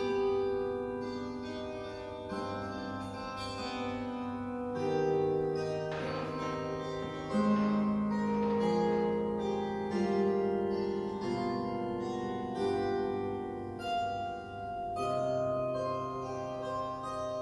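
A Veeh-Harfe, a zither-type table harp, plucked in a slow melody with chords. Each note rings on and overlaps the next.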